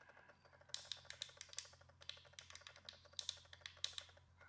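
Small plastic clicks from the HackRF PortaPack H2's rotary knob and navigation buttons as the menu is worked, coming in quick runs of several clicks with short pauses between.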